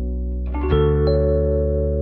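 Background music of sustained chords, with new notes coming in about half a second in and again about a second in.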